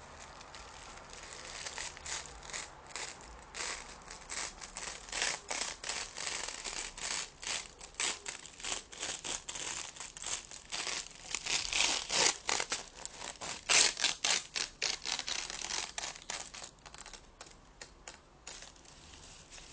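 Close-up crinkling and rustling of something crinkly being handled, in many quick irregular strokes, loudest a little past the middle and thinning out near the end.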